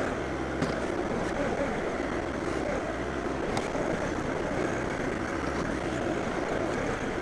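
John Deere 2025R compact tractor's three-cylinder diesel engine running steadily while it pushes dirt to backfill a hole.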